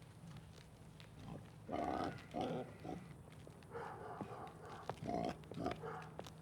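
A pig grunting: about half a dozen short grunts, starting about two seconds in.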